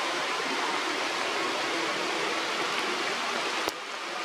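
Steady outdoor rushing noise with a sharp click about three and a half seconds in, after which the noise briefly drops.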